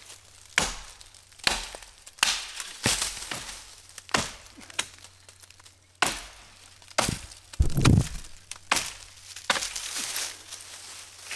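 Firewood being broken up for a campfire: about a dozen sharp cracks and knocks of dry wood, irregular, roughly one a second, with a heavier thud about two-thirds of the way through.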